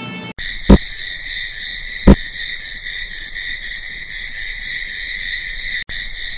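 Night-time ambience of crickets chirping steadily and high, with two sharp, loud knocks about a second and a half apart near the start.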